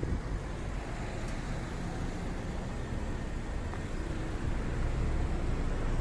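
Steady street traffic: the rush of cars passing on the road, a little louder near the end.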